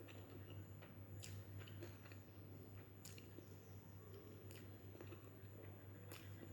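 Faint close-up chewing of a mouthful of chicken biryani, with soft wet mouth clicks at irregular moments, over a low steady hum.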